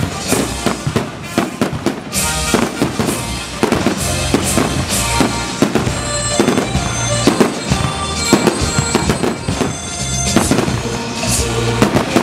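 Aerial fireworks shells launching and bursting in quick succession, several cracks and bangs a second, over music playing underneath.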